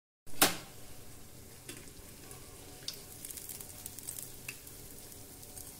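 Vermicelli-coated bread rolls deep-frying in hot oil on medium gas: a steady sizzle with a few small clicks and pops. A sharp click comes just after a brief gap at the start.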